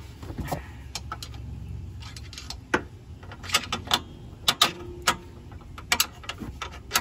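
Sharp metallic clicks and clinks of a hex key working a bolt into a car's lower suspension arm, about ten of them, coming thicker in the second half.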